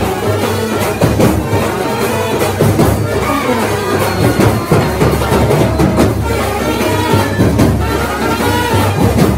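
Upbeat dance music with a steady percussive beat.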